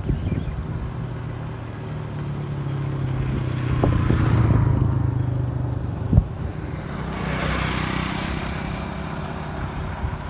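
A motor vehicle's engine running, growing louder a few seconds in and then easing off, with a single knock about six seconds in and a hiss near the end.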